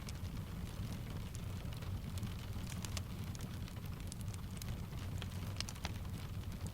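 Steady rain mixed with a crackling wood fire: a low, even rumble under a scatter of sharp pops and ticks.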